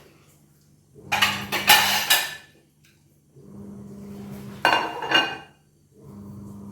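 Kitchen utensils clattering against pots and dishes in two bursts, about a second in and again near five seconds, over a low hum that comes and goes.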